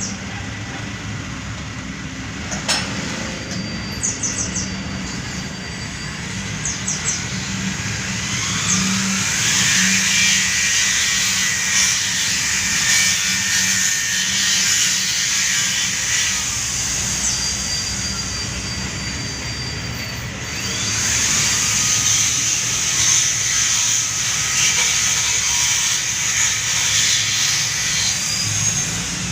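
Metal lathe running with a steady motor hum while the tool cuts across the face of an engine block head. The high scraping hiss of the cut swells about eight seconds in and again about twenty-one seconds in, with a few sharp clicks in the first seconds.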